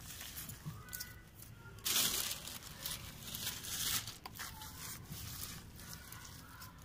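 Dry leaves and vegetable peels rustling and crackling as they are dropped and handled in a plastic pot, with the loudest rustle about two seconds in.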